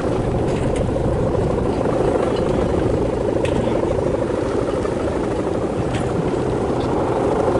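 Steady, fluttering drone of a guwangan, the hummer bow mounted on the head of a large Balinese fish-shaped kite, vibrating in the wind as the kite is flown.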